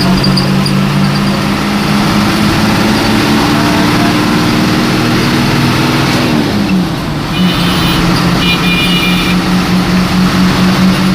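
Hino AK1J bus engine running at highway speed, a steady low drone with a tone that climbs slowly. About six and a half seconds in the note falls and the level dips for a moment before the engine pulls again with a pulsing drone. Two short high tones sound a little after the dip.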